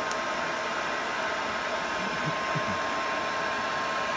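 Hairdryer used as the bellows of a brake-drum forge, running steadily on full: a steady motor whine over the noise of air blowing into the coke fire.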